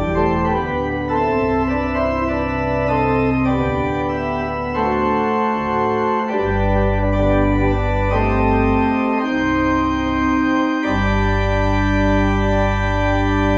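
Organ playing slow sustained chords over deep held bass notes; the bass drops out briefly around six and again around ten seconds in.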